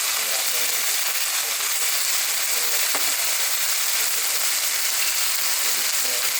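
Food sizzling as it fries in a hot pan, a steady hiss with a single sharp click about three seconds in.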